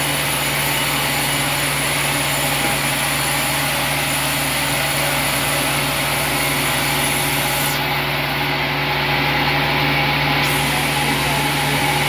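Large vertical band sawmill running steadily as red oak slabs are sawn, with a constant low hum and a hiss. The highest part of the hiss drops out for about two seconds, some eight seconds in.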